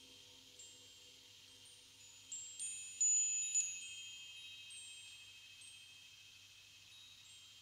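Chimes ringing: a few high metallic strikes land close together about two to three and a half seconds in, then ring on and fade slowly over a faint low hum.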